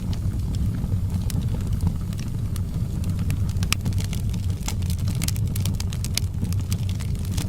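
Wood fire in a fireplace crackling, with irregular sharp pops and snaps over a steady low rumble of the burning.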